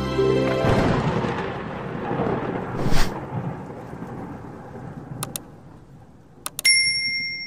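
Intro sound effects: a noisy thunder-like rumble that swells with a sharp crack about three seconds in, then slowly fades. Near the end come two pairs of mouse clicks and a ringing notification-bell ding.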